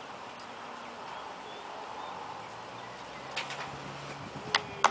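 Steady open-air background noise, then several sharp knocks in the last second and a half, the loudest just before the end.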